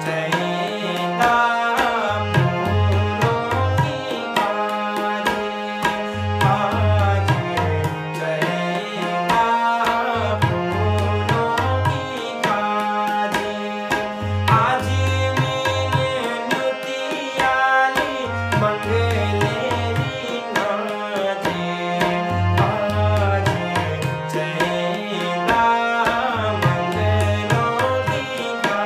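Tabla accompaniment under a harmonium and male voices singing an Uttarakhandi mangal geet, a traditional auspicious ceremonial folk song.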